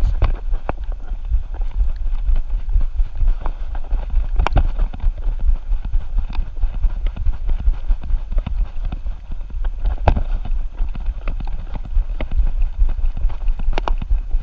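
Rhythmic knocking and thumping from a camera strapped to a running dog, jolted with each stride, over a steady low rumble of wind and handling noise on the mount.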